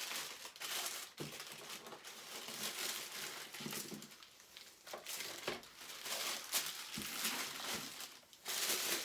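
Packing material rustling and crinkling as a statue's base is lifted out and unwrapped, with a couple of light knocks.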